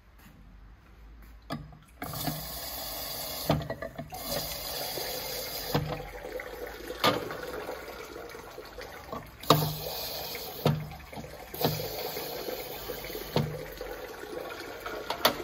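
Water spraying from a stainless-steel sink's built-in glass rinser as drinking glasses are pressed upside down onto it. The spray comes in repeated spurts, with sharp clinks of glass set down on the metal plate.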